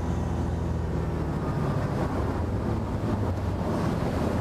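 Sea Ray 240 Sundeck's 350 Mag V8 sterndrive engine coming off the throttle as the boat slows from cruising speed. Its steady note loosens about a second in, under a constant rush of wind and water.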